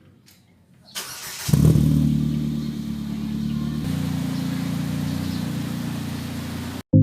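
Ford Fiesta Mk7 engine cranking and catching about a second and a half in, flaring up loudly, then dropping to a steady idle through its Borla aftermarket exhaust; the sound cuts off abruptly near the end.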